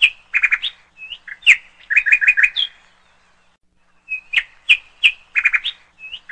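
Bird chirping: a run of sharp chirps and quick repeated notes, a pause of about a second, then the same run of chirps again.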